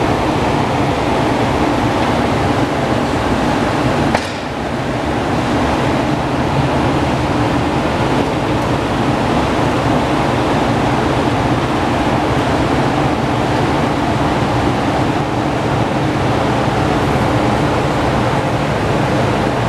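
Steady, loud rushing noise with a low mechanical hum under it. A sharp click about four seconds in is followed by a brief dip in level.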